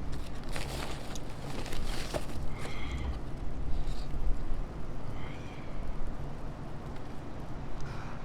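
Wind buffeting the microphone, a steady low rumble, with a few brief faint sounds about three and five seconds in.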